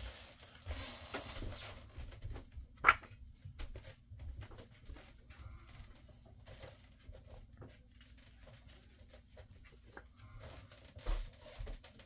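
Comic books in plastic sleeves being handled and shuffled, with paper and plastic rustling. There is a single sharp click about three seconds in and a few louder bumps near the end.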